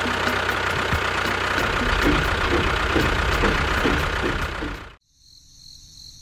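An engine running steadily with a fast, regular knocking beat, then cutting off abruptly about five seconds in; a faint high-pitched hum remains after.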